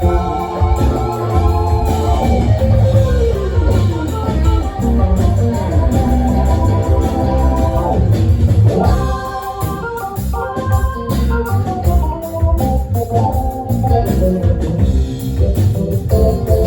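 Live band playing an instrumental passage, an organ-toned keyboard carrying the lead over bass and drums.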